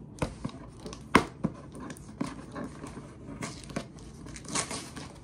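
Packing tape being picked at and torn off a cardboard box by hand, with scratching and rustling of the cardboard; a sharp click about a second in, and a longer rasp of tearing near the end.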